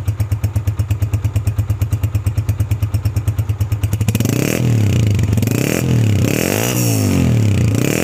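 Honda CG125's single-cylinder four-stroke engine running on its stand, heard close to the exhaust, for its sound test after a 500 km running-in. It idles with an even beat of exhaust pulses, then about four seconds in the throttle is blipped about once a second, each rev rising and falling back.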